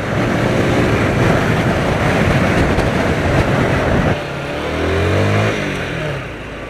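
Traffic noise on the road while driving: a loud rushing of vehicle and road noise for about four seconds, then quieter, with an engine note rising and falling in pitch.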